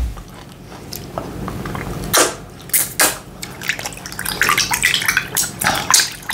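Wet, sticky squelching and clicking of semolina fufu being squeezed and pulled apart by hand, in quick irregular bursts from about two seconds in.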